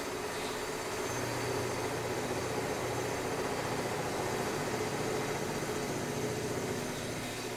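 Construction machinery running steadily: a continuous engine drone with a low hum that does not let up.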